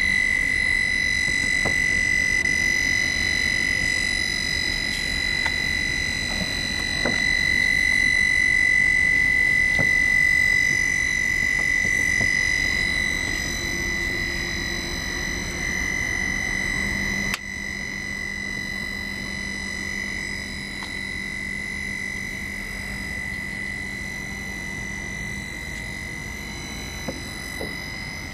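Handheld roof seam welding machine running along a metal roof seam: a steady high-pitched whine over a rough buzzing. There is a sharp click about 17 seconds in, and after it the machine runs a little quieter.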